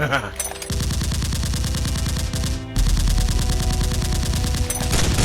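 Rapid automatic gunfire: long bursts of closely spaced shots that break off briefly a little past halfway, then carry on.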